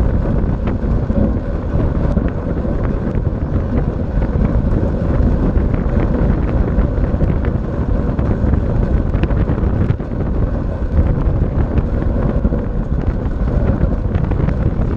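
Wind rushing over the microphone of a camera riding along on a track bike at racing speed. It is a steady, loud, low rumble with scattered faint ticks.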